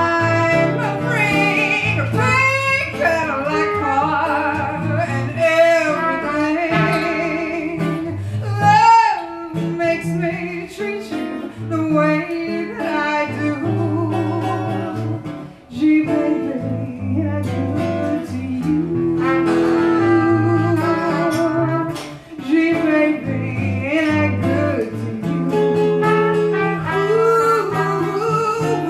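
Small jazz combo playing a slow tune live: trumpet and hollow-body electric guitar, with a woman singing.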